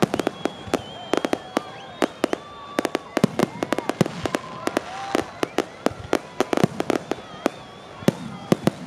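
Aerial fireworks shells bursting in rapid, irregular succession, several sharp bangs a second.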